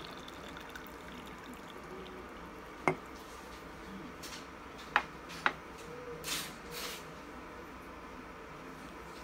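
The last of a pour of hot water into a ceramic magic mug, then three sharp clinks as a ceramic mug is set down on a glass tabletop, followed by two short hisses.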